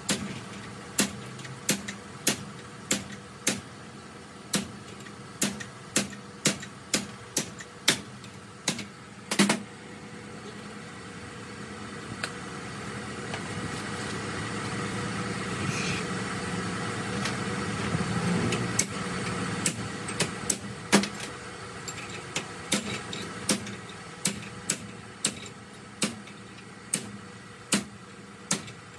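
Steel tractor gearbox shaft being knocked down by hand against a bench vise to seat its bearing: sharp metal-on-metal knocks, about one or two a second. The knocks stop for several seconds in the middle while an engine's steady hum grows louder and fades, then they resume.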